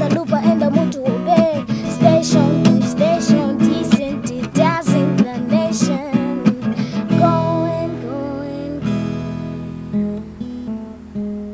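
Acoustic guitar playing, picked and strummed in a busy run of notes, then settling into held chords that ring out and fade away over the last few seconds.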